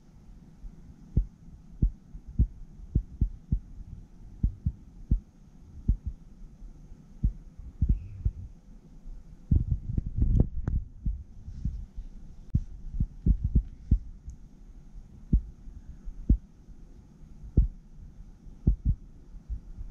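Irregular low thumps and occasional sharper knocks, about one or two a second with a denser cluster about halfway through: handling noise as items are moved about on a countertop.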